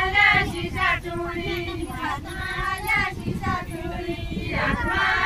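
A group of women singing a deuda folk song together in chorus, phrase after phrase, with a low uneven rumble under the voices.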